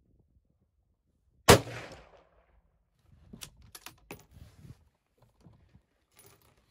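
A single rifle shot from a scoped bolt-action rifle, loud and sharp with a short echoing tail, about a second and a half in. A couple of seconds later comes a quick run of quieter metallic clicks as the bolt is worked.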